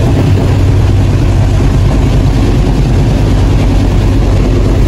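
Passenger train running at speed, heard from the vestibule beside an open carriage door: a loud, steady rumble of wheels on the track mixed with a rush of air.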